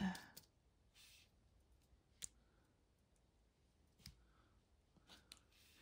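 A handful of faint, sharp clicks a second or two apart: a diamond painting drill pen tapping drills into place on a crystal art sticker.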